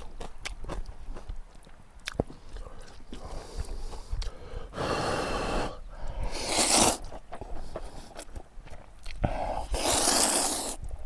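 Close-up chewing of crisp kimchi, with repeated sharp crunches. Three louder breathy rushes of air through the nose or mouth come twice near the middle and once near the end.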